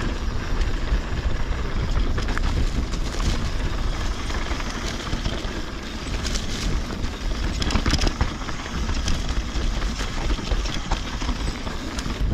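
Mountain bike riding dirt singletrack: wind rushing over the microphone and tyres rolling on the trail, with scattered clicks and rattles from the bike.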